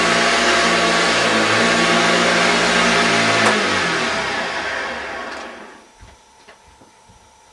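Hoover Junior 1346A upright vacuum cleaner running steadily. About halfway through there is a click, then the motor winds down, falling in pitch, and dies away.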